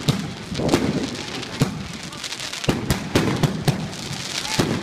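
Fireworks going off: about eight sharp bangs at irregular intervals, some in quick succession, over a constant crackle of smaller firecrackers.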